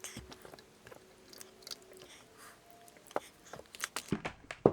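Handling noise of multimeter test leads being changed over to clip leads: a string of small clicks, taps and rustles, with a few sharper clicks toward the end.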